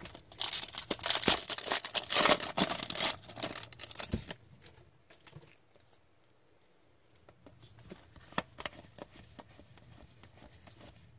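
A foil hockey card pack torn open, its wrapper crinkling and crackling loudly for about four seconds. Softer clicks and rustles follow as the cards are handled.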